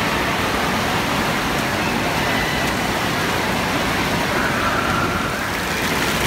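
Steady rush of water from bubbler fountain jets splashing in a shallow play pool, over the echoing din of an indoor water park hall.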